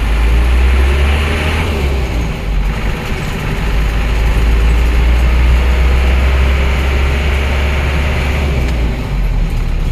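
Mazda T3500 Coaster's diesel engine running as the vehicle drives along, heard from inside the cab as a steady low rumble. The engine sound dips briefly between two and three seconds in.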